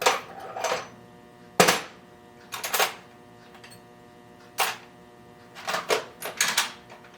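Irregular clinks and knocks of pieces of metal bar stock being moved and sorted by hand while searching for a short length of 1/4 inch stock, the sharpest knock about one and a half seconds in.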